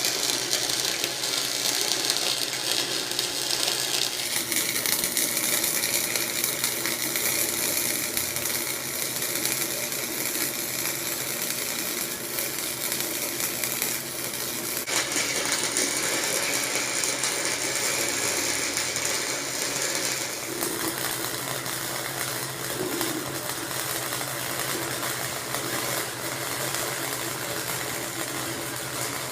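Flux-core wire-feed welder arc crackling steadily while welding steel pipe joints, its crackle changing abruptly a few times as the welding goes on.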